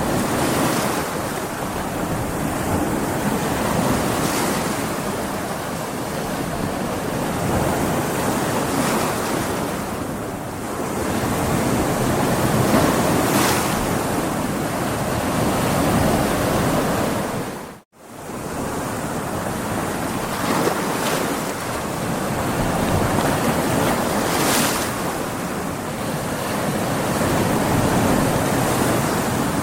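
Stormy sea: big waves breaking on a beach in continuous surf that swells and eases every few seconds. About two-thirds of the way through, the sound drops out to silence for a split second and comes straight back.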